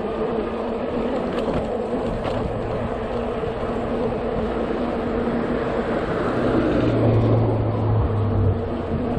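Ride noise on an electric bike: steady wind rush on the action-camera microphone and tyre noise, with a faint steady hum. A low drone grows louder from about seven seconds in and eases off near the end.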